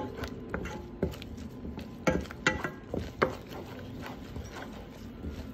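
Wooden spoon stirring a thick butter-and-flour sauce in a saucepan, knocking and scraping against the pan at irregular moments.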